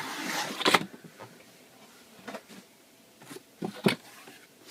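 Cardboard laptop box and its inner packaging being handled: a rustling scrape at the start that ends in a sharp knock, then quiet with a few scattered knocks, the loudest about four seconds in.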